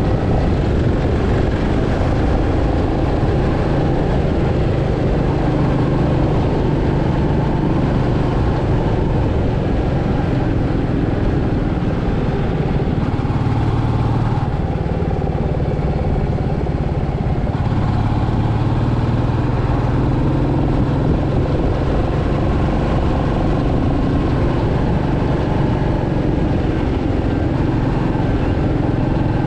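Royal Enfield Meteor 350's 349cc single-cylinder engine and exhaust running steadily as the motorcycle cruises, heard from the rider's seat. The engine note shifts slightly about halfway through.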